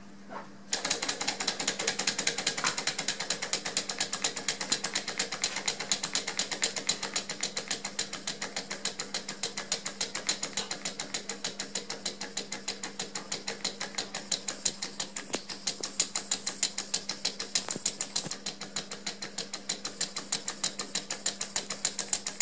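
Small 3D-printed Stirling engine with glass syringe cylinders running with its cylinders horizontal, its linkages giving a steady, rapid, even clicking at several clicks a second as the flywheels turn.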